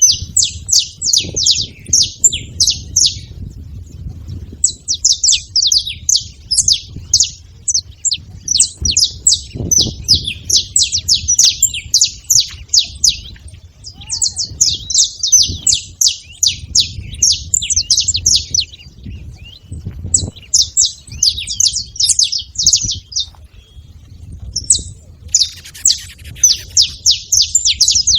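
Canaries singing in long runs of fast, high trilled notes, phrases of several seconds broken by short pauses, over a low background rumble.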